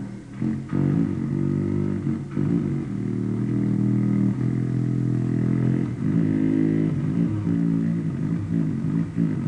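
A low, buzzing drone held on one pitch, its tone pulsing and shifting in rhythm, with a few brief breaks.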